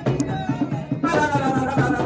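Music with a steady drum rhythm and a wavering melody line above it.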